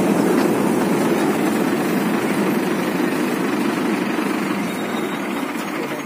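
Rice (paddy) harvesting machine running: its engine and threshing machinery make a steady mechanical noise that grows slowly quieter toward the end.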